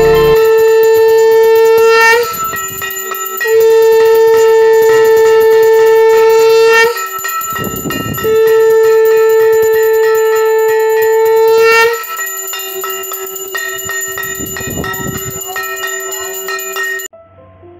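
Conch shell (shankha) blown in three long, steady blasts of about three seconds each, with short breaks between them, as is done at a Hindu puja, with a bell ringing along with it. After the third blast a quieter, lower held tone follows and cuts off suddenly near the end.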